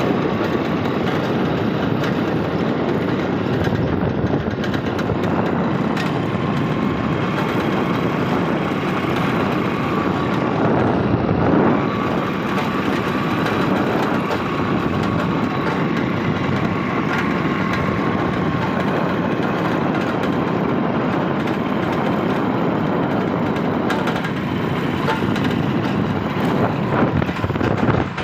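Steady motor vehicle and road noise, an even, unbroken rumble and hiss with a faint whine running through it.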